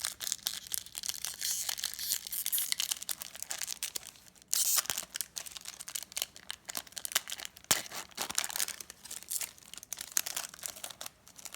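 Foil wrapper of a Pokémon trading card booster pack crinkling and being torn open, with a sudden louder crackle about four and a half seconds in.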